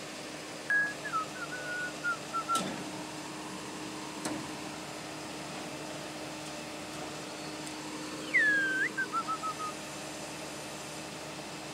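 Crane truck engine running steadily with a constant hum while the hydraulic crane lifts pipes, with two short knocks in the first half. Over it come two clear whistled phrases: a held note about a second in, then a swooping note about eight seconds in, each followed by a quick run of short falling notes.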